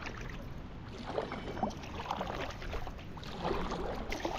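A kayak being moved through a shallow creek: irregular splashes, knocks and scrapes of the paddle and hull against water and wood, over a low wind rumble on the microphone.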